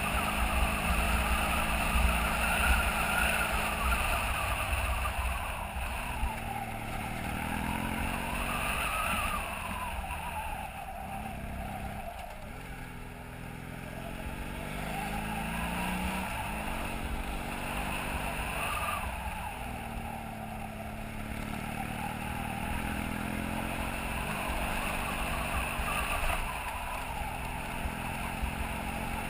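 BMW F800GS parallel-twin engine running under way, its pitch rising and falling several times as the throttle is opened and eased off, over a low rumble.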